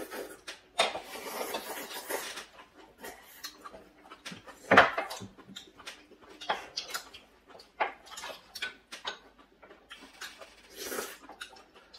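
Close-up eating sounds of two people at a meal: chewing and slurping broth, with spoons and chopsticks clicking against bowls. There is one louder click about five seconds in.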